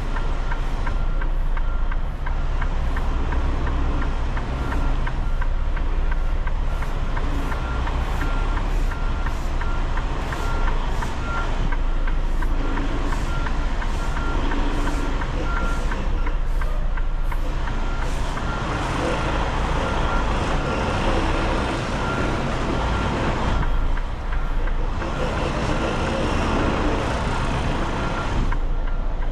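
Semi truck's diesel engine running at low speed while manoeuvring, with a backup alarm sounding steady, evenly spaced beeps over the engine.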